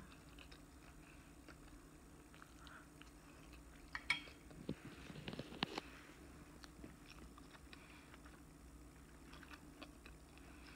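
Faint closed-mouth chewing of a bite of roast pork, with soft wet mouth clicks. About four seconds in there is a short run of louder clicks and smacks.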